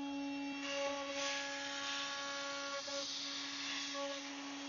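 CNC router spindle running with a steady whine while its end mill cuts into solid white gum. A rough cutting hiss comes in just under a second in and carries on.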